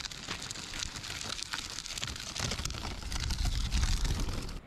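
The fabric of a folding handcart's pockets and panels being handled: rustling with many small clicks, and a low rumble that builds in the second half before the sound cuts off abruptly.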